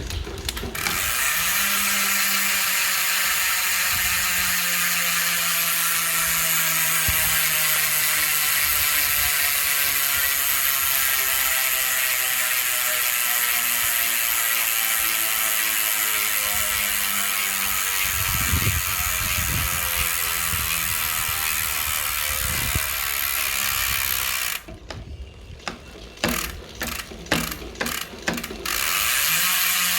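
Trailmech bicycle rear hub freewheeling: the pawls make a continuous fast ratchet buzz that falls slowly in pitch as the wheel coasts down. Near the end it slows to separate clicks, then buzzes again. This is the hub's original sound, before its grease is repacked.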